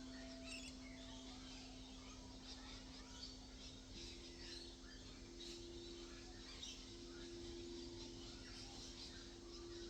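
Two singing bowls ringing faintly in long, steady tones: a lower bowl sounds throughout, and a higher bowl comes in about four seconds in and is held alongside it. Birds chirp faintly in the background.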